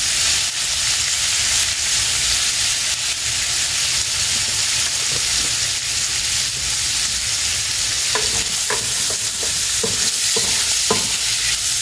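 Cubes of pork sizzling steadily as they brown in hot fat in a tagine base. From about eight seconds in, short scrapes and clicks join in as a utensil turns the pieces in the pan.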